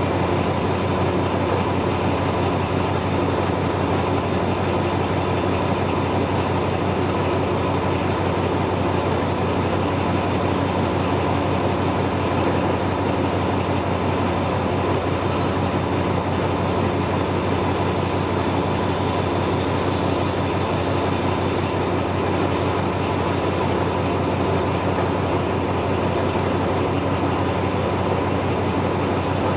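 Diesel-hauled passenger train running, a steady unbroken noise with a constant low hum and a faint high tone held throughout.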